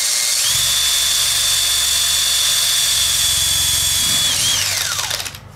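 Cordless drill running flat out, spinning a wooden spindle pressed into a wooden hearth board to make a friction fire: a steady high motor whine over the hiss of wood grinding on wood. It starts suddenly, and near the end the whine falls in pitch as the motor winds down and stops.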